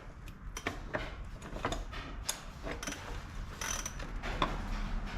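7/16 socket ratchet clicking in short, irregular strokes as it works a bolt out, the nut held by a second ratchet locked on the other side.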